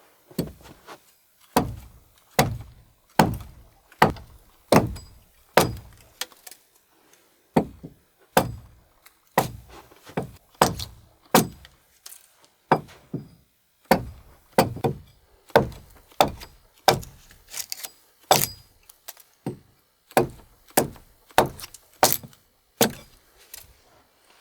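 A tool striking wood over and over: a heavy thud every half second to a second, in runs broken by short pauses.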